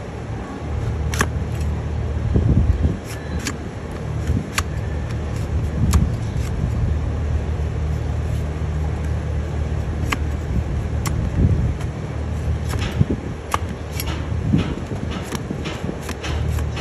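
Broad flat trimming blade paring horn from a donkey's hoof, with crisp slicing and scraping strokes at irregular intervals over a steady low rumble.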